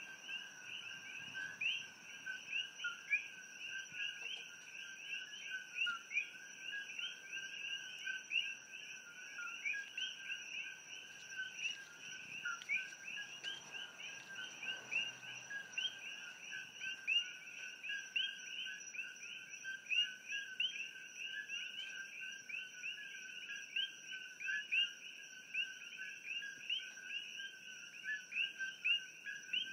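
Dense night chorus of many coqui frogs (Eleutherodactylus coqui), their short rising "co-qui" calls overlapping continuously. A steady high-pitched drone runs above them.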